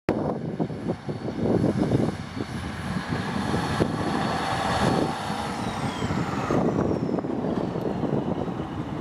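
Class 153 diesel multiple unit pulling away, its underfloor Cummins six-cylinder diesel engine running under load with a low rumble. A faint high whine slides slowly down in pitch from a little past halfway.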